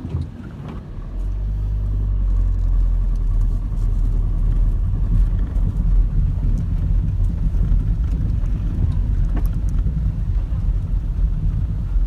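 A motor vehicle's low engine rumble that swells about a second in and then stays loud and steady.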